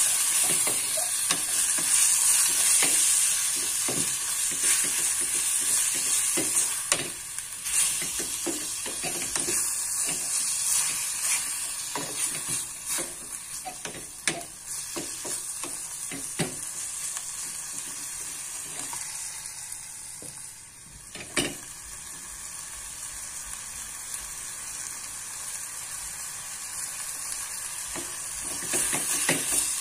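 Sliced beef sizzling as it is stir-fried in a small enamel saucepan, with a spatula repeatedly scraping and knocking against the pan. The sizzle is strongest for the first several seconds and then eases, with one sharper knock about two-thirds of the way through.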